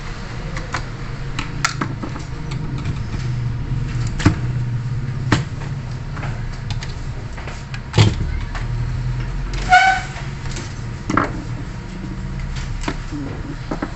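Scattered sharp clicks and knocks from a graphics card being handled and taken apart on the workbench, over a steady low hum. A short high squeak comes about ten seconds in.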